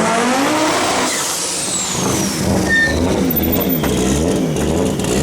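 Turbocharged five-cylinder Audi quattro hill-climb race car running hard. The engine note drops in the first second, then swings up and down about twice a second as the driver works the throttle. A high whistle falls away in pitch about a second in.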